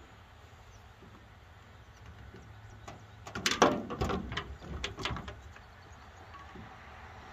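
A short run of metallic clicks and rattles, from a chainsaw's guide bar and chain being handled and fitted onto the saw. The clatter comes in the middle, loudest near its start, then stops.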